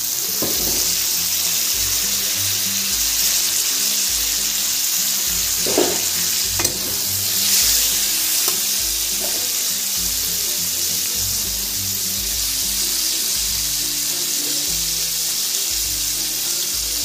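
Chopped tomatoes sizzling in hot oil in a shallow metal pan, a steady frying hiss, with a spatula scraping and knocking against the pan a few times as it stirs.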